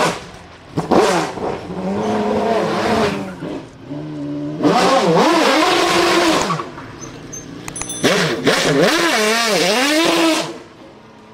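Naturally aspirated GT1 race car engine revving hard. Its pitch rises and falls repeatedly in three loud stretches with quieter gaps between, and it fades near the end.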